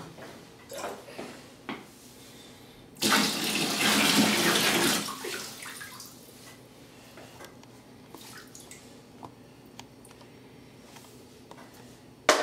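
Water poured from a cooking pot into a bathtub already holding water, a loud splashing rush for about two seconds, starting about three seconds in and trailing off. A few light knocks come before it.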